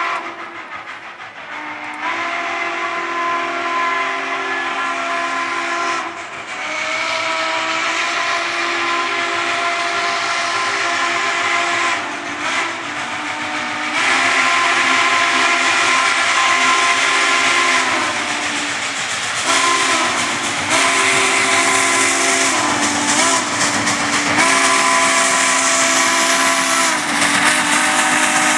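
Southern Pacific 4449's steam chime whistle blowing a series of long blasts, several notes sounding together, with short breaks and brief wavers in pitch, over a steady hiss of steam.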